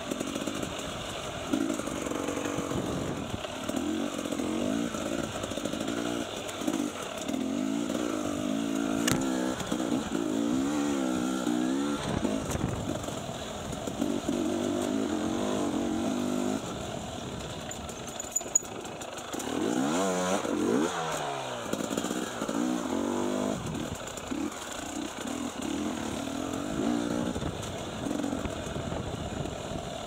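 Enduro motorcycle engine heard from the rider's seat, its revs rising and falling with the throttle over rough trail, and easing off for a couple of seconds a little past halfway.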